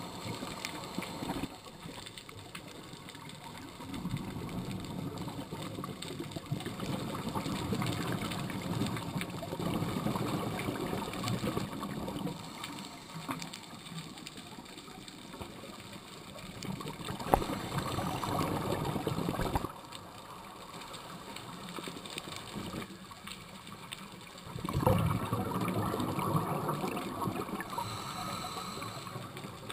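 Underwater breathing through a scuba regulator: the exhaled bubbles gurgle in bursts a few seconds long, with quieter pauses between breaths, heard muffled through the camera housing.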